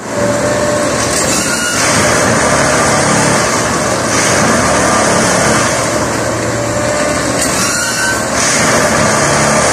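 Plasser & Theurer Unimat Combi 08-275 track tamping machine at work: its engine and hydraulics run steadily, with a noisy rush that swells and falls back about every three seconds as it works the track.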